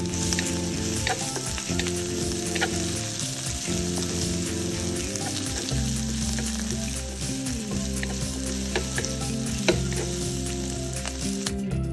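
Diced onion and minced garlic sizzling in oil in a wok while being stirred with a wooden spatula, with a few sharp knocks of the spatula against the pan.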